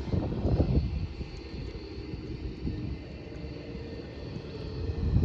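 Jet airliner's engines rumbling overhead with a faint steady high whine; the low rumble swells louder about half a second in and again at the end.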